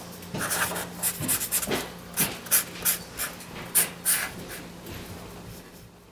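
Felt-tip marker drawn across paper: a run of quick, irregular scratchy strokes with short squeaks, over a low steady hum. The strokes thin out and fade near the end.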